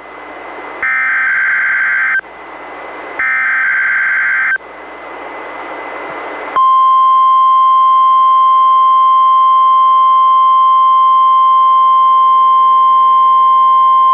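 NOAA Weather Radio Required Weekly Test received on a Reecom R-1630 weather radio. First come the last two bursts of the SAME digital header, each about a second and a half of buzzy data tones, with radio hiss between them. About two seconds after the second burst, the steady 1050 Hz warning alarm tone starts and holds.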